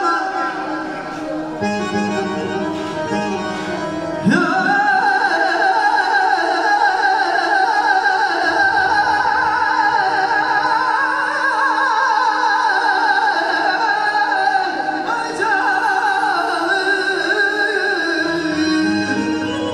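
Live amplified music: a man singing into a handheld microphone over electronic keyboard accompaniment, heard through a PA. The music is thinner for the first few seconds, then comes in fuller and louder about four seconds in, with a wavering, much-bent melody line.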